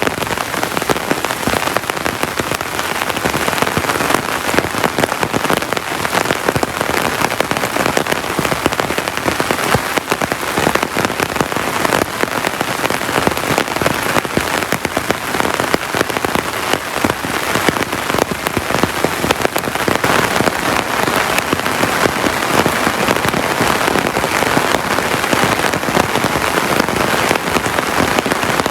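Heavy tropical rain falling steadily, a dense, unbroken patter of drops.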